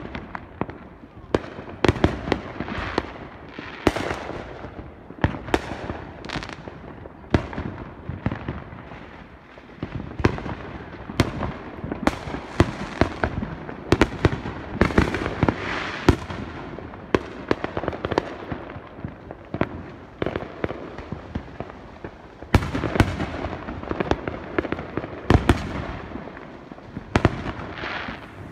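Fireworks going off all around: a dense, irregular run of sharp bangs and pops, many overlapping, with crackling in between, busiest in the middle stretch and again near the end.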